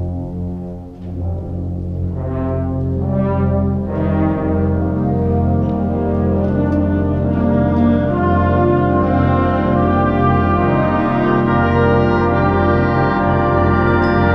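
Symphonic wind band playing: a low held note under brass chords that come in about two and four seconds in and build to a full, sustained swell.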